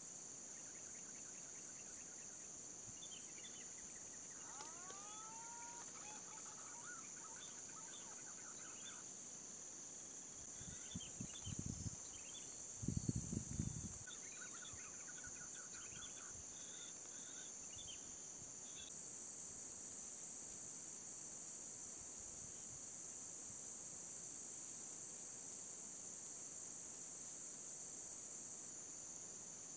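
Steady high-pitched drone of insects, with scattered bird chirps and rising whistles in the first half. A few low bumps, the loudest sounds, come about halfway through.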